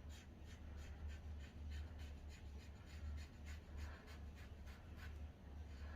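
Henson AL13 safety razor scraping through lathered stubble in short, repeated strokes, about three a second, over a steady low hum.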